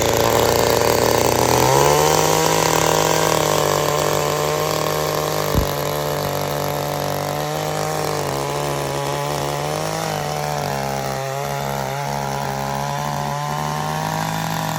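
Small two-stroke gasoline tiller engine running. Its pitch steps up about two seconds in as it speeds up, then holds steady at high speed, with one sharp knock about halfway through.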